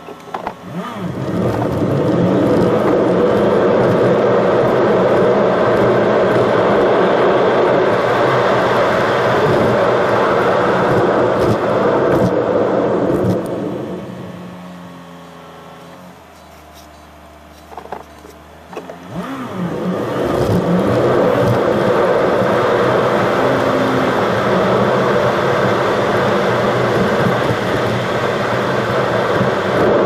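Car engine and tyre noise heard from inside the cabin as the car pulls away from a stop and drives steadily. About halfway through it slows to a quiet idle for several seconds, then pulls away again.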